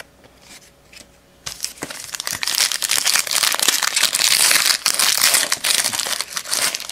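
A foil trading-card pack wrapper being torn open and crinkled by hand. About a second and a half in it starts, then a dense run of crackling that lasts until near the end.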